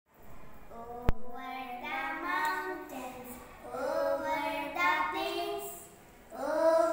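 Two young girls reciting a rhyming poem together in a sing-song chant. There is a sharp click about a second in, and a short pause between lines near the end.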